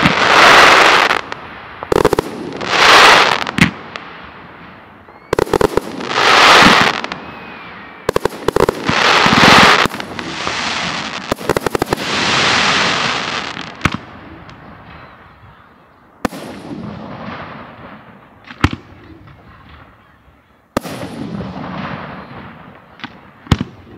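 Aerial firework shells bursting: a loud boom about every three seconds in the first half, with sharp cracks in between. In the second half the bursts thin out to fainter cracks and rumble.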